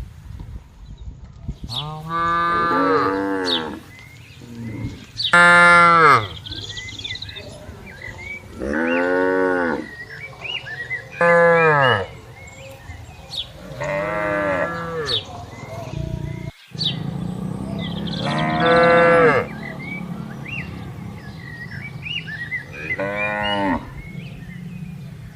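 Cattle mooing, about seven separate drawn-out calls of a second or two each, some lower and some higher-pitched.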